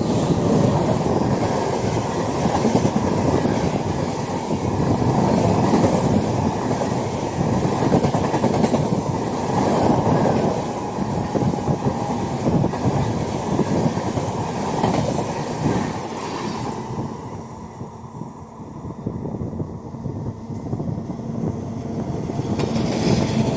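A train passing close by, its wheels clattering over the rail joints. The clatter thins out for a few seconds near the end, then builds again.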